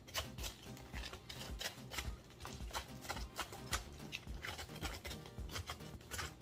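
Raw cabbage being hollowed out by hand: irregular, crisp scraping and cutting sounds, several a second, as leaves are pared away inside the head. Quiet background music plays underneath.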